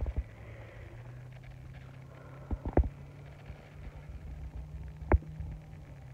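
A few sharp knocks over a low steady hum: two close together just under three seconds in, and a louder single knock about five seconds in.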